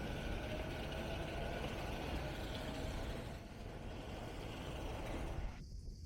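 Steady city street noise with a low rumble of road traffic. The middle of the sound cuts out abruptly near the end.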